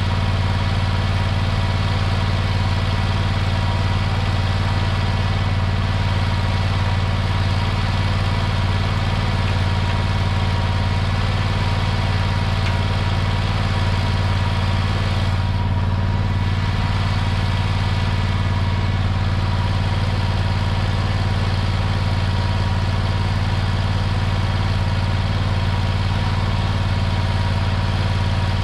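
Mini skid steer's gasoline engine running steadily at one constant speed.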